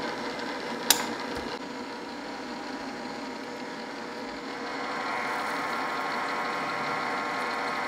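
DoAll drill press running, its motor and gear head giving a steady hum, with one sharp click about a second in. The hum gets louder and brighter about five seconds in.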